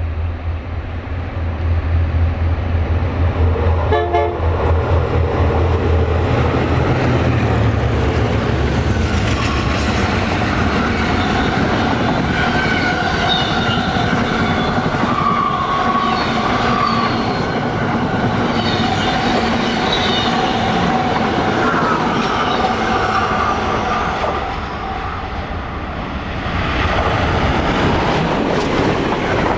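EMD E8 diesel locomotives approaching with a pulsing low engine drone, and a short horn toot about four seconds in. A train horn then sounds in long chords as the passenger train passes, and near the end the rushing rumble of passenger cars going by close at speed.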